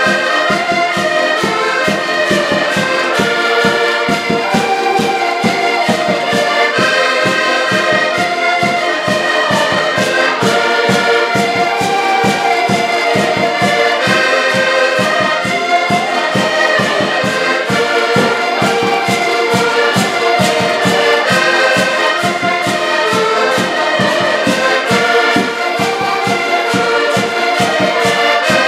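Several accordions playing a traditional Portuguese tune together, with held chords over a steady pulsing rhythm.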